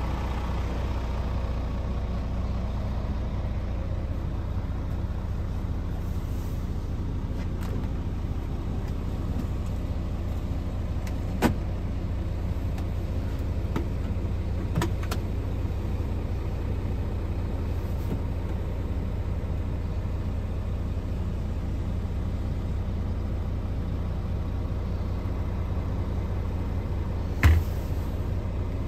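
Scania R450 truck's 13-litre straight-six diesel idling steadily, heard from inside the cab as a low, even hum. A few sharp clicks sound over it, the loudest near the end.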